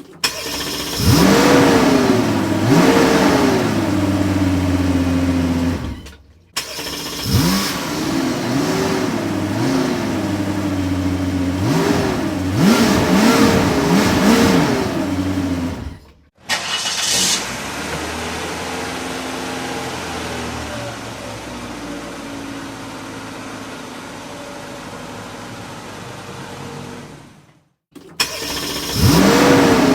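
Car engine revved in repeated blips, its pitch rising and falling, across a few separate clips with short gaps between them. In the middle, for about ten seconds, the engine runs steadily instead.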